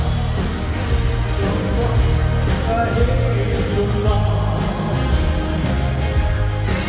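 Live music from a Norwegian dance band: a steady beat with heavy bass and regular cymbal hits.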